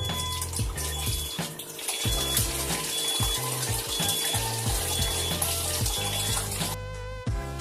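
Water running steadily from a tap over background music with a steady beat; the water cuts off suddenly near the end, leaving only the music.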